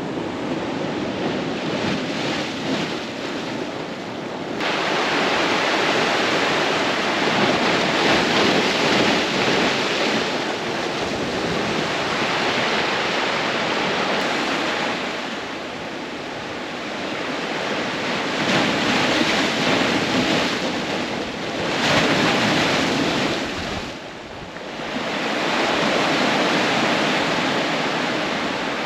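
Ocean waves breaking and washing on the shore, a steady rush of surf that swells and falls back every few seconds.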